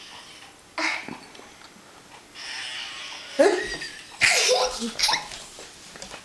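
Fart sound effects from a fart app, played through an iPod's small speaker: a string of short bursts, the loudest about three and a half and four and a quarter seconds in.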